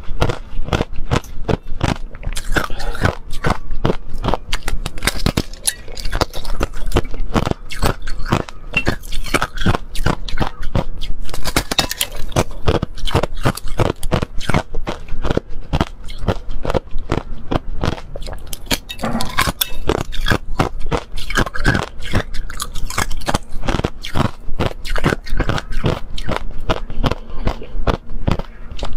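Thin, clear sheets of ice crunched, snapped and chewed close to a clip-on microphone: a dense, rapid run of sharp crackles and cracks that keeps going throughout.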